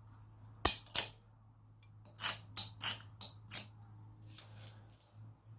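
Hand-forged steel scribe drawn in short, quick scratches across a scrap piece of metal, about eight strokes, marking it to test the point.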